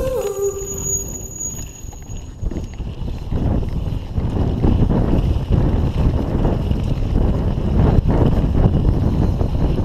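Wind buffeting the microphone: a rough, low rumble that dips and then grows stronger about four seconds in. The last notes of a song end about half a second in.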